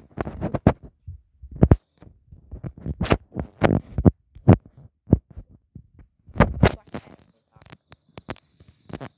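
Irregular thumps and rustles of a camera phone being carried and handled, with footsteps.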